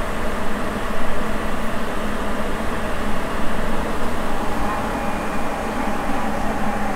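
Sapporo Municipal Subway 9000 series train running at speed in the tunnel, heard from inside the car: steady rolling noise from its rubber-tyred running gear, with a faint whine coming in about halfway.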